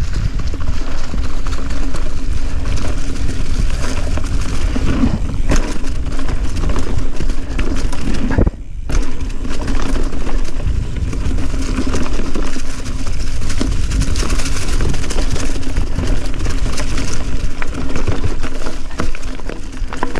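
Mountain bike riding fast over a dirt trail strewn with dry leaves: continuous tyre noise crunching through leaves and dirt, the bike rattling over bumps, with a heavy low wind rumble on the microphone. The noise drops out briefly about eight and a half seconds in, then resumes.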